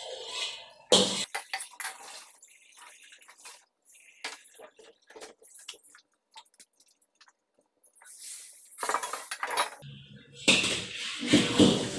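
Metal spatula clanking and scraping against a wok while stir-frying vegetables: a run of sharp clinks through the first half, loudest at the start. Near the end comes a dense rushing noise.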